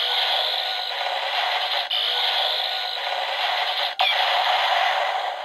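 Electronic sound effect playing from the speaker of a Kamen Rider Vulcan Shotriser toy gun: a loud, harsh, noisy rush with two brief breaks, about two and four seconds in.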